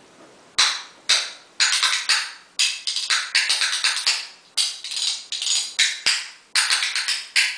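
A pair of spoons played by hand, clacking together in quick rattling runs. The runs start about half a second in and come in rhythmic bursts with short breaks between them.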